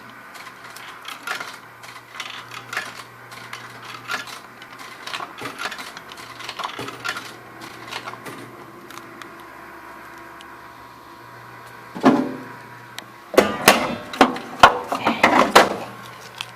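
Snack vending machine vending a candy bar: scattered small clicks over a low hum, a steady motor drone for a few seconds, then a thud about twelve seconds in and a run of loud knocks and rattles as the snack drops and is taken out through the delivery flap.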